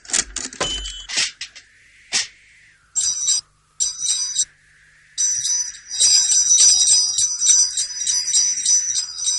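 Sleigh bells jingling as a horse-drawn sleigh sets off: two short shakes about three and four seconds in, then continuous jingling from about five seconds in. A few sharp clicks and knocks come in the first two seconds.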